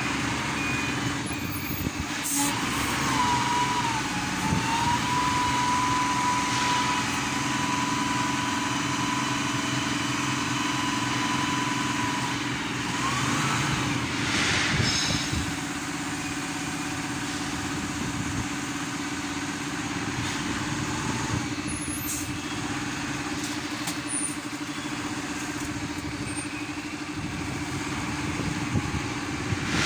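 Yale 10-ton forklift's engine and double hydraulic pump running steadily. A higher whine comes in about two seconds in, wavers briefly, holds steady and stops after about ten seconds.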